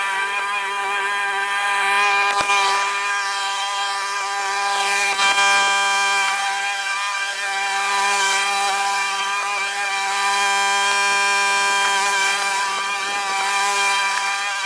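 A small petrol engine, of the kind on a lawn mower or line trimmer, running at a steady high speed with an even buzzing note.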